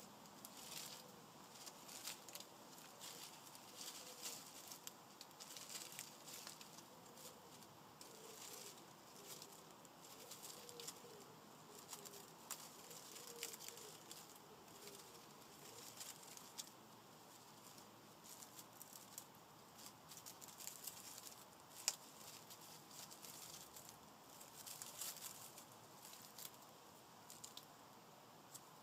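Near silence with faint, scattered ticks and crackles: two baby hedgehogs moving over dry leaves and gravel.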